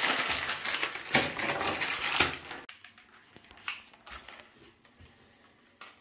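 Plastic sink-siphon parts being handled and fitted together: clicking, clattering and rustling for about two and a half seconds, then only a few faint clicks.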